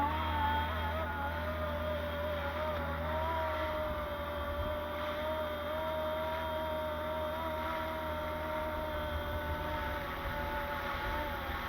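Fly Wing FW450 electric RC helicopter in flight: its direct-drive tail rotor motor is screaming, a steady high whine that wavers slightly in pitch, over a low drone.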